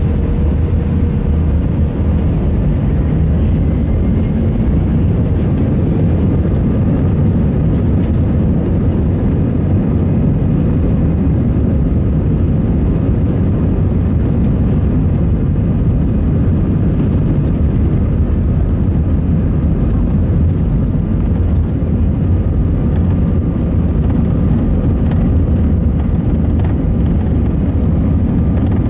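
Steady cabin noise of an Airbus A320 moving on the ground with its jet engines running: a loud low rumble, with faint steady whines from the engines.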